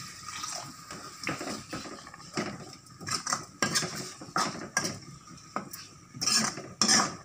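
Metal ladle stirring and scraping masala in a black kadhai, with irregular clinks and scrapes of metal on the pan.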